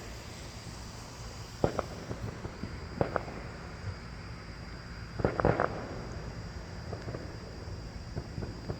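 Distant fireworks going off in scattered sharp pops and bangs, with a quick cluster of several reports near the middle.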